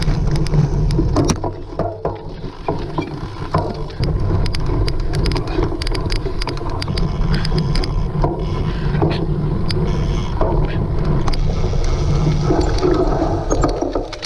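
Cyclocross bike ridden over rough ground: a steady rumble with frequent rattles and clicks from the bike, and wind buffeting the microphone.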